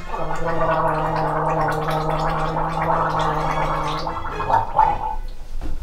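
A woman gargling, a rattling voiced gargle held on one pitch for about four seconds, then a couple of short gurgles near the end.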